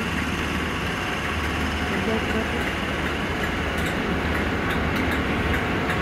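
Class 43 HST power car's MTU 16V4000 diesel engine running as the train moves along the platform: a steady deep rumble, growing slightly louder, with faint clicks from about three and a half seconds in.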